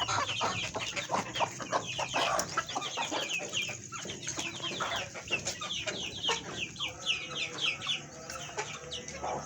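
A large flock of chickens calling all at once: many short, high calls, each falling in pitch, overlapping without pause.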